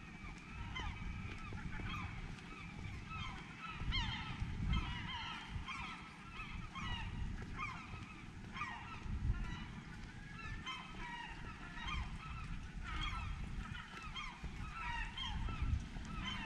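A large flock of birds calling, many short, overlapping calls that slide in pitch, over a low rumble.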